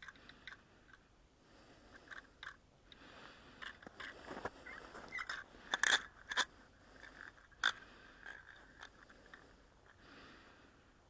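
Scattered crunches, scrapes and clicks close to the microphone, from the angler moving and handling gear on snow-covered ice. The loudest cluster comes about six seconds in, with a single sharp click near eight seconds.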